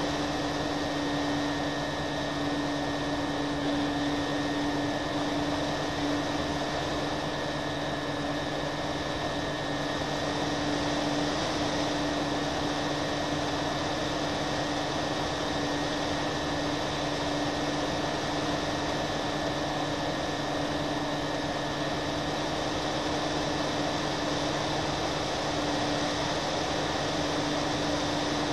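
Twin motors and propellers of a radio-controlled FPV plane in cruising flight, heard through its onboard camera: a steady drone at one unchanging pitch over a rush of wind noise.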